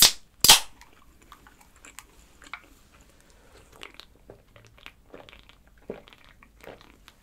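Beer can being opened: two sharp cracks as the tab is pulled, the louder about half a second in. Then soft, scattered swallowing sounds as the beer is drunk from the can.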